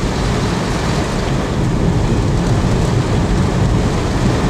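Steady noise of a car driving, heard from inside the cabin, with road rumble and wind buffeting the microphone.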